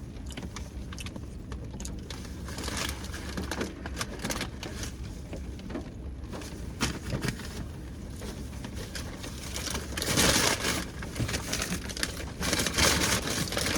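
Crinkling and rustling of a takeout food container being handled, with scattered small clicks. It gets louder about ten seconds in and again near the end.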